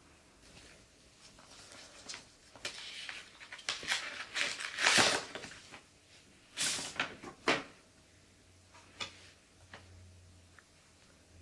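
Paper envelope being opened by hand and a greeting card slid out and unfolded: a run of crisp paper rustles and crackles, loudest about halfway through, with a few lighter rustles near the end.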